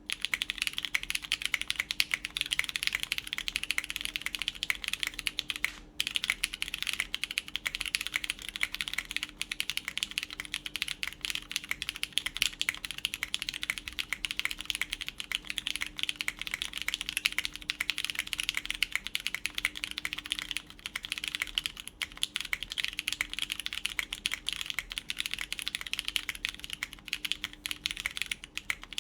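Fast continuous typing on a full-copper mechanical keyboard with lubed Cherry MX Brown switches, PEI plate and GMK keycaps: a dense stream of key clacks with a brief pause about six seconds in.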